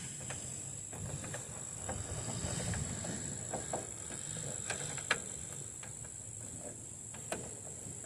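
Scattered light plastic clicks and taps as a turn-signal bulb socket is fumbled against its light housing while it is fitted back in, two sharper clicks near the end. A steady high-pitched whine runs underneath.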